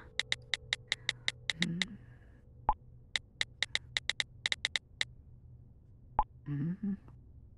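Smartphone keyboard tap sounds: quick runs of light clicks as messages are typed, with two louder, deeper pops, about three seconds in and near the end.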